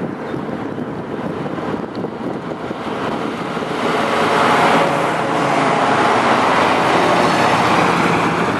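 Old Unimog trucks driving past in a convoy, engine and tyre noise growing louder about four seconds in as one passes close.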